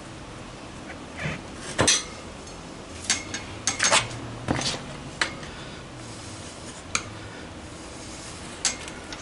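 Tyre levers clinking and knocking against a motorcycle wheel rim as the front tyre bead is worked off by hand: irregular sharp metallic clinks, the loudest about two and four seconds in.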